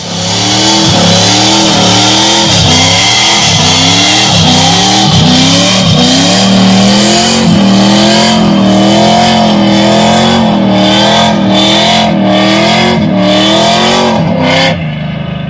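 Pickup truck engine revving hard through a burnout, its pitch rising and falling in quick repeated surges. It drops off sharply near the end.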